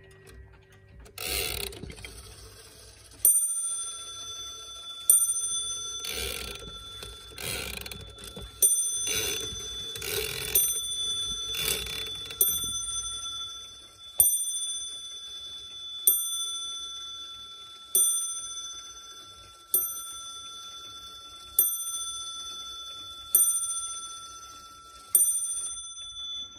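Clock bell striking the hour: a long series of single strokes about two seconds apart, each ringing on and fading before the next. It is a lantern-style wall clock with a bell on top. Irregular rustling noises run through the first half.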